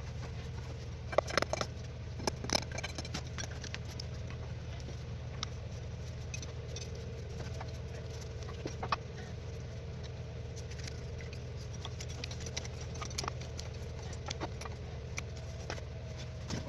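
Steady low machine hum with scattered sharp clicks and taps, the loudest a cluster about a second in and another around two and a half seconds in.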